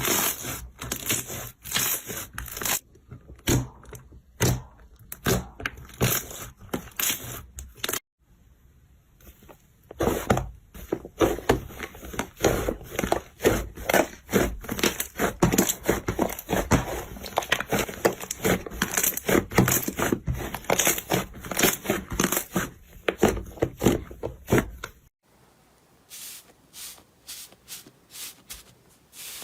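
Slime being squeezed, poked and stretched by hand, giving dense runs of sticky clicks and crackling pops. The sound breaks off abruptly about 8 seconds in and again near 25 seconds, each time giving way to a new run.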